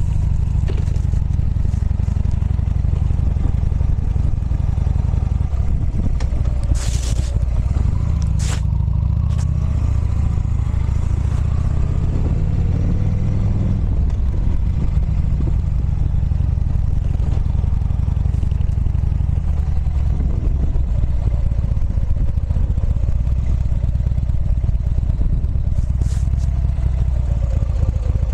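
Motorcycle on the move, recorded from the bike: heavy wind rumble on the microphone over the engine, whose pitch climbs and drops as the rider works the throttle. There are a few sharp clicks, two close together about seven and eight and a half seconds in and one near the end.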